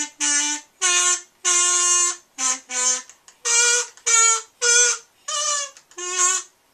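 A tune played by blowing into a small handheld wind instrument: about a dozen short, steady notes of changing pitch, one held longer about a second and a half in, each with a breathy hiss.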